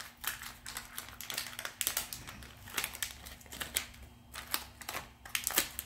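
Crinkling and crackling of the shiny plastic anti-static bag holding the Arduino board as it is handled and opened: a run of irregular sharp rustles and clicks.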